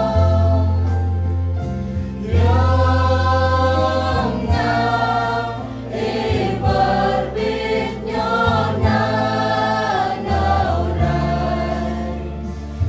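Mixed choir of women's and men's voices singing a Christian hymn in Jrai, over held low bass notes that change in steps.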